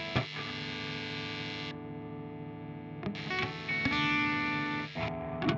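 Distorted electric guitar, a direct-input recording played through a virtual amp, ringing out a couple of sustained notes with the amp's static hiss and buzz left unsuppressed. The hiss swells in twice, about two seconds each time, with a small click and a few sharp pick attacks between.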